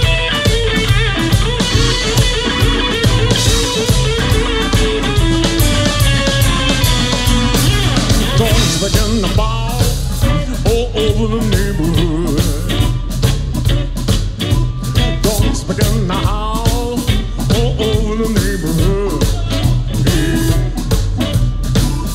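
Live blues band playing an instrumental break: electric guitar lead with bending notes over bass guitar and drum kit.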